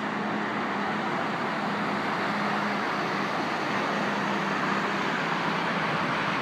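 Steady roar of freeway traffic, with a faint hum that drops out and returns a couple of times.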